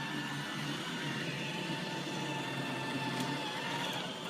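iRobot Roomba 880 robot vacuum running on carpet: a steady motor whine with a few constant high tones over the hiss of the suction and brushes.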